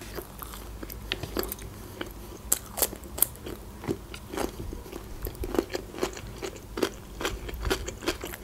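Close-miked chewing of a mouthful of Adjarian khachapuri bread, mouth closed, with many small irregular clicks.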